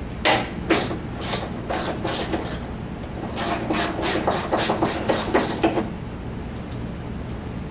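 Metal parts and hand tools knocking and clicking while a VW Beetle door is taken apart: a few sharp knocks first, then about two and a half seconds of even clicking at about five clicks a second, which stops about two seconds before the end.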